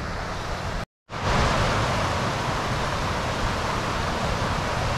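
Steady rush of a mountain beck spilling over a small rocky waterfall, with some low wind rumble on the microphone. The sound cuts out for a moment about a second in, then resumes.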